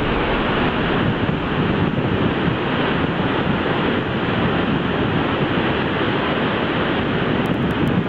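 Steady, even rush of floodwater pouring through a large dam's fully opened spillway gates and crashing into the river below.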